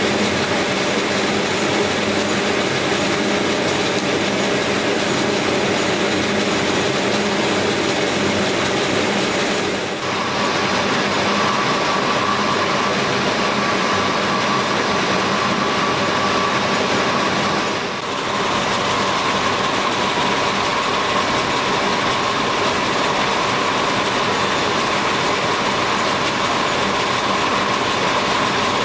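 Plastic rope-making machinery running: a loud, steady mechanical noise that dips briefly twice, with a steady high whine joining about ten seconds in.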